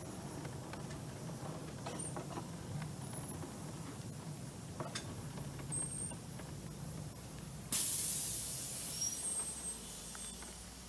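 Miniature railway train running with a steady low rumble and a few light clicks. About eight seconds in, the rumble gives way to a sudden loud hiss of released steam that slowly dies away.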